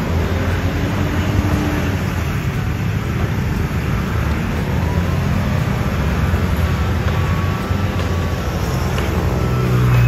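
Lonking wheel loader's diesel engine running under load as it digs into and lifts a bucket of sand. A steady low drone that grows louder near the end.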